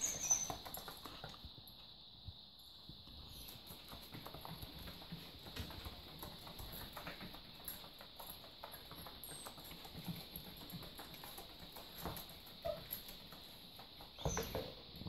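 Puppies scuffling and wrestling on foam floor mats: faint, irregular soft taps and patters of paws and bodies, with a few slightly louder knocks near the end.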